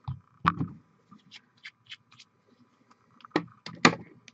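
Irregular light clicks and taps of small objects being handled: a couple of sharp knocks about half a second in, a run of faint ticks in the middle, and a few louder knocks near the end.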